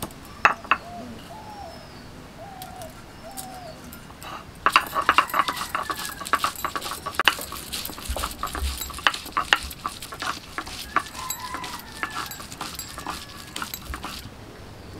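Stone pestle pounding and crushing ginger, garlic and green chillies on a grinding board: a few sharp knocks at first, then a dense run of quick knocks from about five seconds in to near the end. Short repeated animal calls sound in the background.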